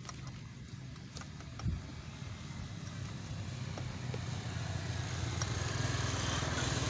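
A small engine running with a low, rapid pulse, growing steadily louder from about three seconds in. A single knock comes about a second and a half in.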